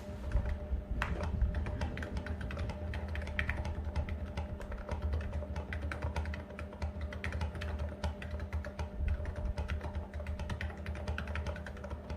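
Niz Plum 68 electro-capacitive keyboard with China Ink keycaps being typed on fast and without pause, a dense stream of key clicks and thocks.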